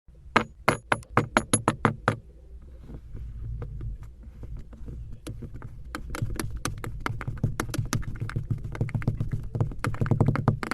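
Kinetic sand being worked by hand or with a tool: first a quick run of sharp taps, about four a second for two seconds, then a low crunching rumble scattered with many faint clicks and crisper taps.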